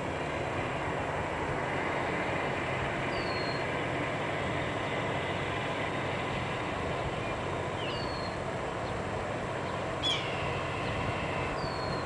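Steady low engine rumble of the pile-driving barge's tow running upstream, with no hammer blows. A bird gives a short high falling chirp every few seconds, and a louder falling call about ten seconds in.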